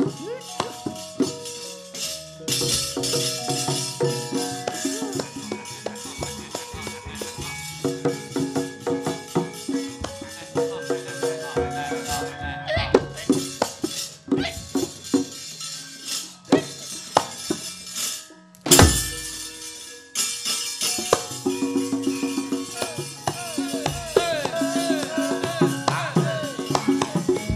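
Javanese gamelan music for a wayang kulit fight, with metallophone notes under dense, rapid clashing of the dalang's kepyak metal plates and wooden cempala knocks. One very loud crash about two-thirds of the way through.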